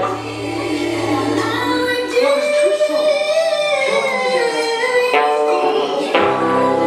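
Live band playing the instrumental intro of an Americana/R&B song, with sustained chords and a wordless sung melody that glides up and down. The bass drops out about two seconds in and comes back near the end.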